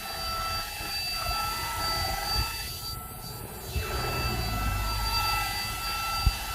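Dibea cordless stick vacuum's brushless motor running with a steady high whine over a rush of air. One sharp knock near the end.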